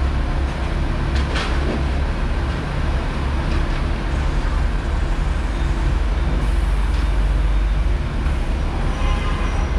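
Hong Kong double-decker tram running along its street track, heard from on board: a steady low rumble with a couple of sharp clicks about a second and a half in.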